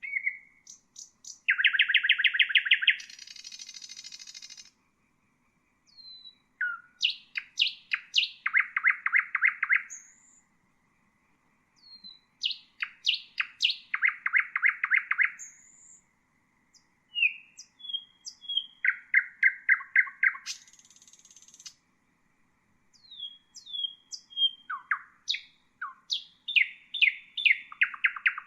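Nightingale singing: about five song phrases a few seconds long, each set off by a short pause. Each phrase is built from sharp whistled notes and fast runs of repeated notes, and some end in a high buzzy rattle.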